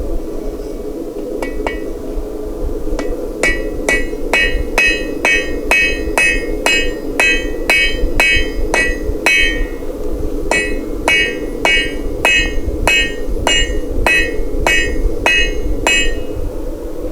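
Blacksmith's hammer striking hot steel on an anvil: a long run of ringing blows, about three a second, with a short break near the middle. A steady low drone runs underneath.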